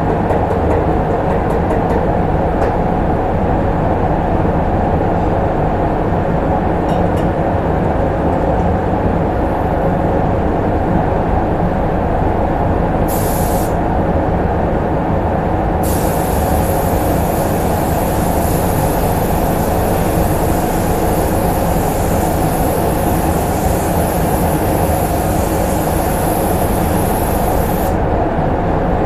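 Paint booth's ventilation running with a loud, steady noise throughout. Over it, a gravity-feed spray gun hisses with compressed air: a short burst a little before halfway, then a long continuous spray pass that stops shortly before the end.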